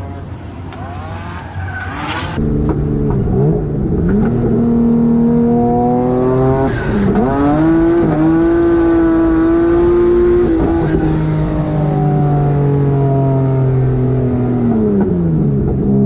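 Drift car's engine revving hard and held at high revs. It gets louder about two seconds in, and the pitch dips and swoops a few times as the throttle is lifted and reapplied, with some tyre squeal.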